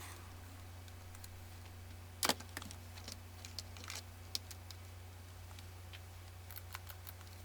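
Keys of a flat, low-profile computer keyboard clicking and rattling as it is rubbed down with a baby wipe: a loud clack a little over two seconds in, then scattered lighter clicks. A low steady hum runs underneath.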